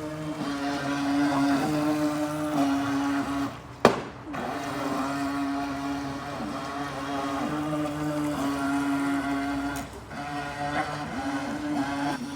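Radio-controlled boat's motor running steadily with a sustained hum, its pitch stepping slightly up and down as the throttle changes. A single sharp knock comes about four seconds in.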